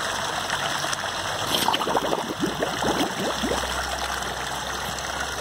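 Steady running water at a hot spring, with a few short gurgles and splashes near the middle.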